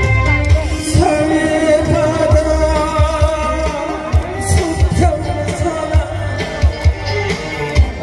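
A singer performing a Korean pop song live, singing over amplified band accompaniment with a steady drum beat and holding a long note about a second in.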